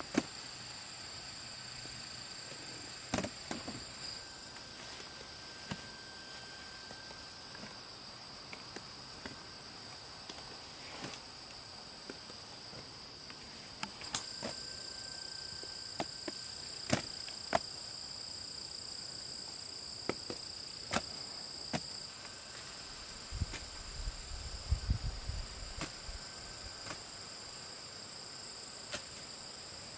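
Steady high-pitched chirring of night insects. Scattered sharp clicks and knocks come over it, with a low rumble lasting a couple of seconds near the end.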